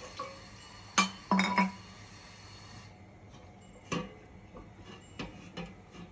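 Glass bottle clinking twice, sharply, about a second in, as it knocks against hard kitchenware; a few seconds later a lighter metallic knock comes from the handle of the aluminium stock pot being gripped.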